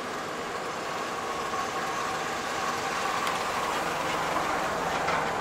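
A 1936 Chevrolet pickup's transplanted 2.5-litre four-cylinder engine running as the truck rolls slowly forward, growing slightly louder as it comes closer.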